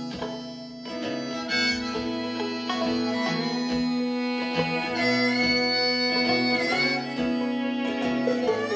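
Harmonica solo with long held notes, over strummed acoustic guitar, fiddle and banjo in a live folk band.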